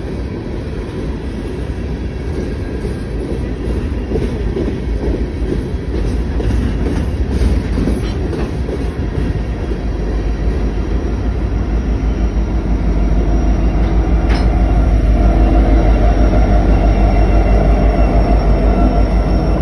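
Loaded coal train's railcars rolling past with a steady rumble of wheels on rail, and a single sharp clank partway through. In the last several seconds a BNSF diesel locomotive comes alongside, and the sound grows louder with a steady engine hum and a fast throb.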